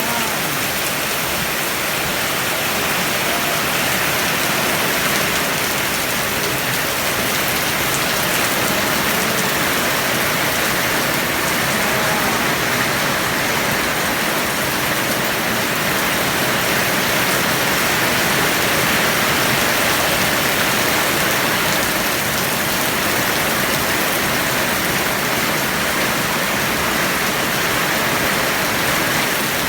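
Very heavy rain pouring down steadily.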